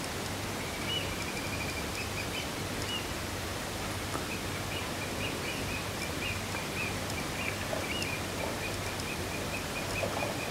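Steady outdoor background hiss, with a running series of short, high chirps repeated through it.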